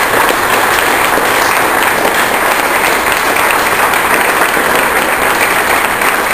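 Indoor crowd applauding steadily, many hands clapping together, in response to a fundraising total being announced.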